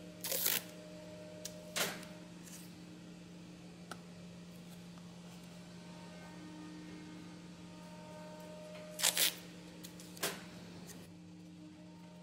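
Blue masking tape being torn and pressed down as the piston bores of a brake caliper are masked off for painting. It comes as a few short rustling bursts: one just after the start, one near two seconds, a louder double one around nine seconds and a smaller one soon after. A steady low electrical hum runs underneath.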